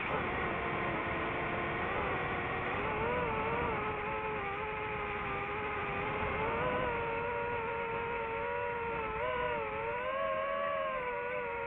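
Multirotor drone's motors and propellers whining steadily, the pitch dipping and rising a few times, over a rough rushing noise.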